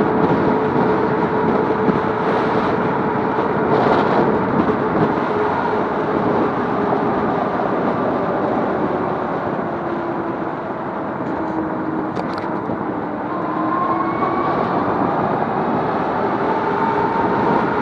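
Electric bike's motor whining over steady rushing wind and road noise while riding. The whine sinks a little in pitch around the middle and climbs again over the last few seconds as the bike picks up speed.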